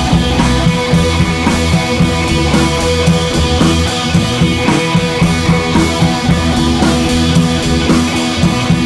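Loud music with drums playing through a big outdoor PA sound system during a sound check.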